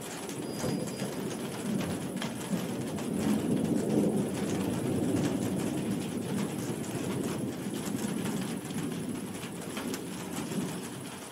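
Rolling thunder rumbling low, swelling to its loudest about four seconds in and slowly dying away, over the steady hiss of heavy rain.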